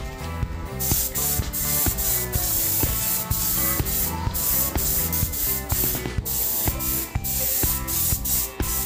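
Compressed-air gravity-feed spray gun hissing as it sprays paint. The hiss sets in about a second in and breaks off briefly around the middle. Background pop music with a steady beat plays underneath.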